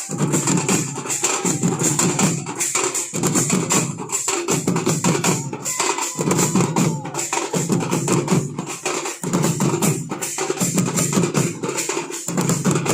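Gond tribal baja ensemble of Odisha playing traditional music: dense, fast drumming repeated in short, even phrases.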